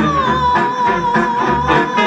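Acoustic band playing live: a long held note with a slight waver rides over guitar strummed in a steady beat, about four strokes a second, with double bass underneath.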